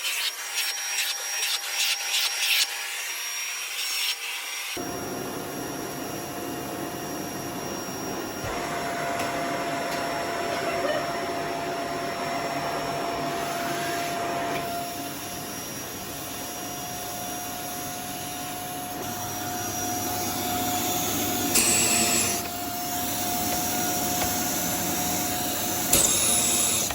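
Von VAVC-16DMR bagless canister vacuum cleaner running on carpet: a steady suction rush with a held whine that sets in about five seconds in. It gets briefly louder twice near the end.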